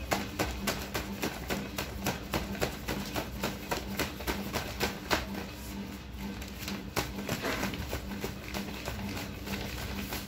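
Paper envelopes being flipped and laid one by one onto a stack by hand: quick crisp paper flicks and taps, about three to four a second, giving way to a softer, busier paper rustle about halfway through.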